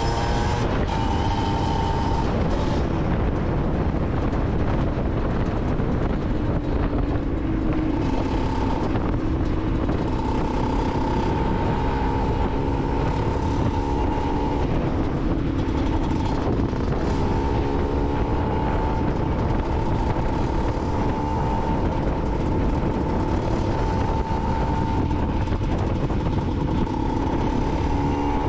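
Aprilia SX 125's single-cylinder two-stroke engine running through an Arrow exhaust while riding, held at high revs with the pitch shifting a few times, over a steady rushing noise.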